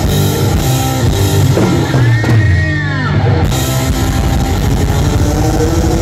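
Live rock band playing loudly: electric guitar over a full drum kit. A couple of seconds in come sweeping glides in pitch, and a long note rises slowly through the second half.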